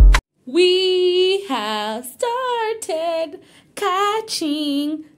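A woman singing a few short, wavering phrases that slide in pitch, without clear words. At the very start, background music with a heavy bass beat cuts off.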